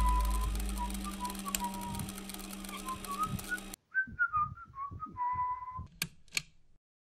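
A person whistling a meandering tune over a low hum that fades away during the first few seconds. Near the end come two sharp clicks, then silence.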